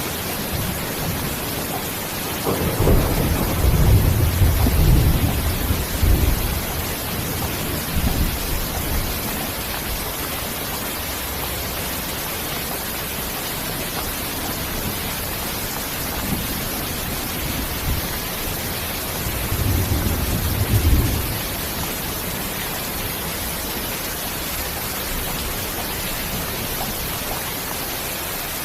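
Steady rain with rolls of low thunder: a long rumble a few seconds in, a short one near eight seconds, and another about twenty seconds in.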